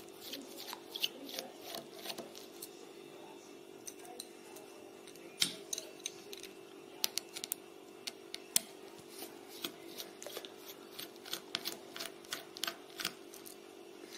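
Screwdriver turning out the display hinge screws of a ThinkPad L440 laptop lid: irregular sharp little metal clicks and ticks as the tip seats and turns in the screw heads, over a steady low hum.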